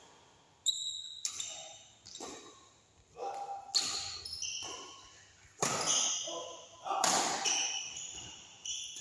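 Badminton rally: rackets striking the shuttlecock in a string of sharp hits roughly one to two seconds apart, each ringing out in the hall's echo.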